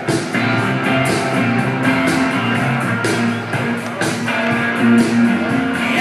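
Rock music with strummed guitar and a steady beat of about two strokes a second.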